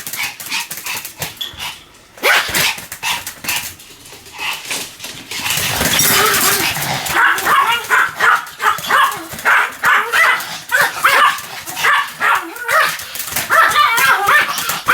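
Pomeranian barking in rapid, repeated sharp yaps, with a short lull a few seconds in before the barking picks up again.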